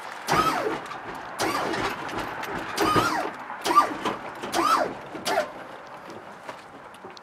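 Lowrider hydraulic pump motor running in about six short bursts, each whine rising and then falling in pitch, as the switches raise the car to full lockup.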